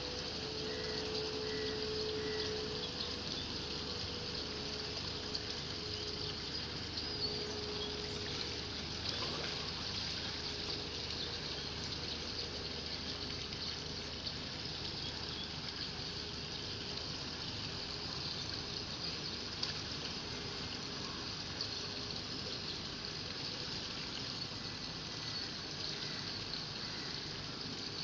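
Steady rushing and trickling of water at a shallow-sea dredging site, with a faint machine hum in the first half that breaks up and fades.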